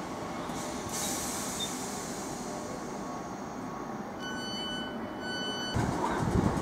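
Southern Class 455 electric multiple unit running into the station with a steady rumble and rail hiss, the rumble growing louder near the end as the train draws close. About four seconds in, two short high-pitched beeps of the same pitch sound one after the other.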